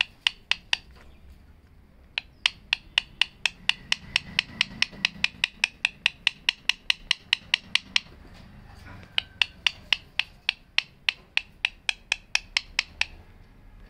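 Rose-ringed parakeet nibbling at a hand-held stick with its beak: rapid sharp clicks, about five a second, in three runs, the longest lasting several seconds.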